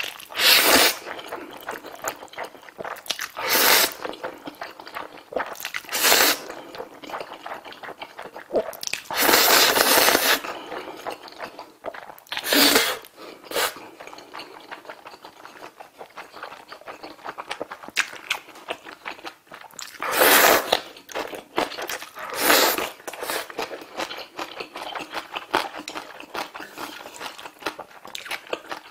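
Close-miked slurping of black bean sauce instant noodles, several loud slurps of about a second each, with wet chewing and smacking between them.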